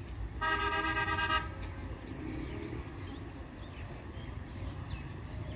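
A vehicle horn sounds once, held steady for about a second, over a low steady rumble of distant traffic.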